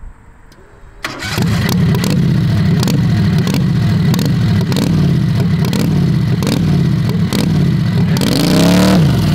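Heavily modified 670cc Harbor Freight V-twin in a drag rail fires up about a second in and runs loud with an even, rhythmic lope, then revs up and drops back near the end.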